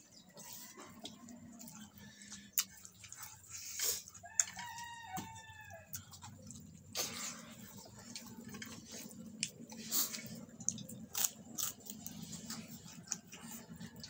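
A rooster crows once, about four seconds in, a call lasting about a second and a half. Around it come scattered sharp clicks and smacks of eating by hand from a wooden plate.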